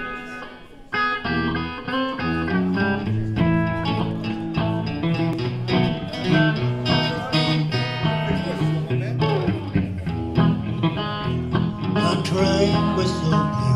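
An acoustic guitar and an electric guitar play a live instrumental introduction together, picking notes and chords, starting about a second in.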